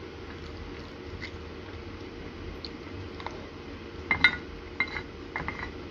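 A toddler's spoon clinking and tapping against his bowl while he eats: a few light clicks about three seconds in, then a cluster of sharper ringing clinks a little after four seconds and several more near the end, over a steady low hum.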